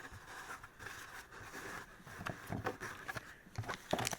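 Faint soft clicks and rustles of Pokémon trading cards being handled and flipped through.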